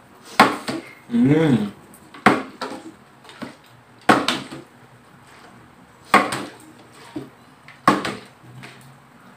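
Plastic water bottle being flipped and landing on a glass tabletop again and again: a sharp knock about every two seconds, five in all. A short vocal sound that rises and falls in pitch comes about a second in.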